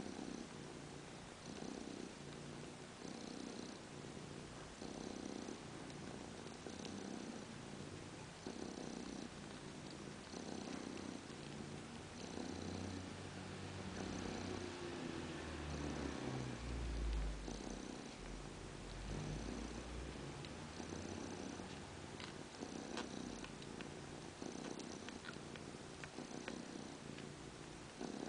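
Mother cat purring steadily while nursing her newborn kittens, the purr rising and falling in an even rhythm with her breathing. A brief low rumble comes near the middle.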